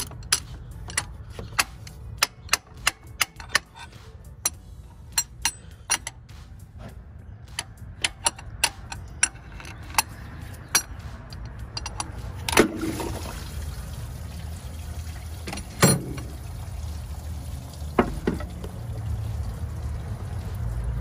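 Steel bar tapping against the aluminium water pump of a 2008 Toyota RAV4's 3.5 L V6 to break it loose from its seat once all its bolts are out. The taps come in a quick, irregular run of light metal clicks at first, followed by a few harder single knocks in the second half.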